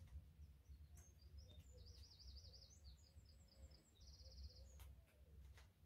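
Faint songbird chirping and trilling over a low room hum: a run of short high notes, a warbling trill about two seconds in, and a quick buzzy trill about four seconds in.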